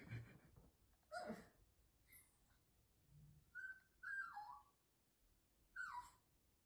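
A small dog whining in short, high-pitched whimpers that fall in pitch, three or four times, faint.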